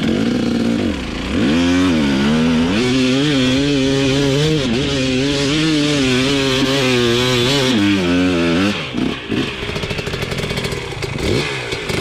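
Dirt bike engine revving hard, its pitch wavering rapidly up and down as the throttle is worked, for about eight seconds before it drops away and goes ragged.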